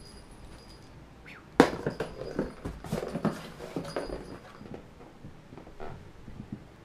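Kitten scrabbling and pouncing inside a cardboard box while batting a small ball: a sudden thump about a second and a half in, then a run of scratchy knocks and rustles on the cardboard that thin out toward the end.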